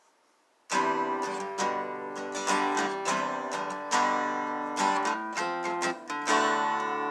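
Acoustic guitar music, strummed and picked chords starting just under a second in, with a last chord near the end left ringing.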